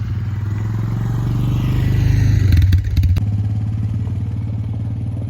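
Honda FourTrax quad's single-cylinder engine running under way, growing louder for the first two and a half seconds or so, then easing off a little and holding steady.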